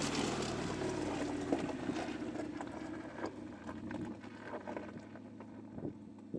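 A 2019 Mercedes-Benz G-Class V8 passing close and driving away over loose stones: steady engine note with tyres crunching and small stones clicking and popping under them, fading as it pulls away.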